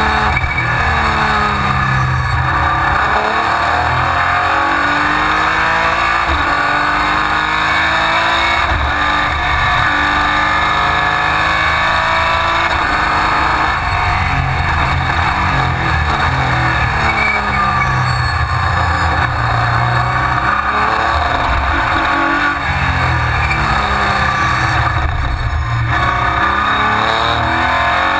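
Race car engine heard from inside the cockpit at racing speed, revving up through the gears with the pitch climbing and dropping back at each shift, and falling as it slows for corners, over steady wind and road noise.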